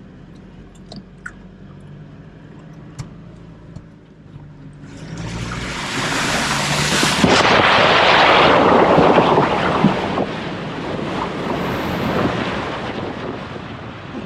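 Toyota Hilux pickup idling quietly, then from about five seconds in driven hard out of a stream bed where it was stuck, in low-range four-wheel drive, its engine and tyres churning through the water and gravel in a loud rushing noise that is loudest about halfway through and then eases.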